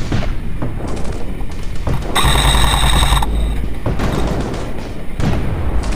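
Airsoft electric gun firing one full-auto burst of about a second, a fast buzzing rattle of shots about two seconds in. Low wind rumble on the helmet camera's microphone and scattered clicks run under it.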